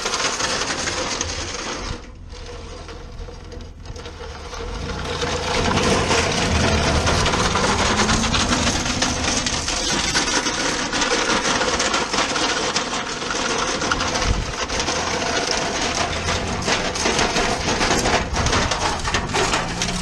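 A microwave oven dragged on a rope behind a moving van, scraping and clattering over a gravel dirt road, mixed with the van's engine and road noise. It eases off briefly about two seconds in, then grows louder from about five seconds as a rising engine note picks up speed.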